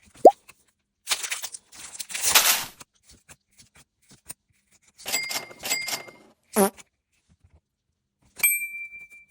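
A string of short sound effects: a quick rising squeak, a rustling noisy burst, a chiming group of tones, a swooping squeak, and near the end a single bell-like ding that rings on.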